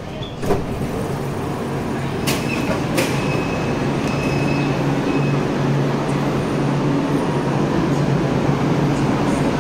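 Foshan Metro Line 3 train doors opening at a station, with a clunk about half a second in and two more knocks a couple of seconds later, and a high tone sounding for about three seconds. Under it the stopped train's steady low hum.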